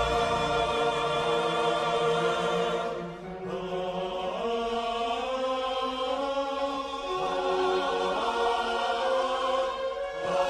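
Film score with a choir singing long, held notes; the music dips briefly about three seconds in.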